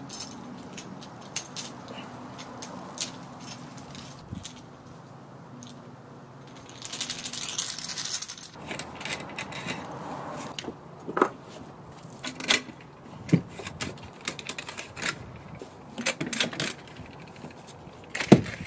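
Small metal mounting hardware for a roof top tent clinking and jingling in the hands, with scattered sharp metallic clicks as parts are fitted to the roof rack. A longer burst of jingling comes about seven seconds in.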